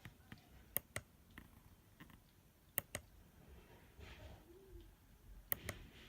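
A few sharp clicks over a faint background: a single click about a second in, then two quick pairs of clicks, one pair near the middle and one near the end.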